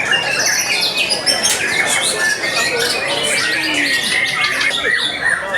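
Many caged songbirds singing at once in a dense, unbroken chorus of overlapping whistles, trills and chatter.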